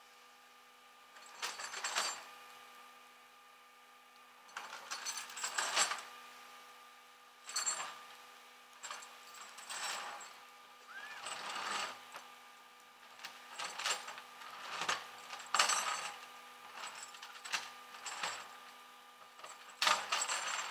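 Steel tow chain and hooks clinking and rattling in repeated short bursts as they are handled and hooked to the front of a car, over a faint steady hum.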